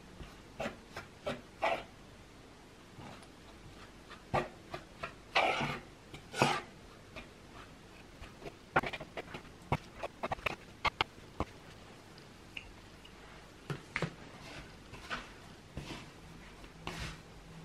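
A metal utensil scraping and clicking against a wooden bowl as it works flour, margarine and water into crumbly pastry dough, in irregular strokes with two longer, louder scrapes about five and six seconds in.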